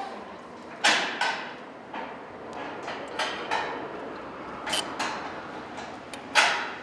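Metal parts of a weatherproof octagon electrical box and its gasketed cover being handled and fastened: a series of irregular sharp knocks and clicks with a short ring, loudest about a second in and near the end.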